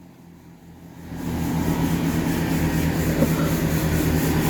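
Class 165 diesel multiple unit's diesel engines powering up as the train pulls away: a steady low engine sound that builds about a second in and then holds. The onlooker thinks something is wrong with it, saying it sounds like a steam train.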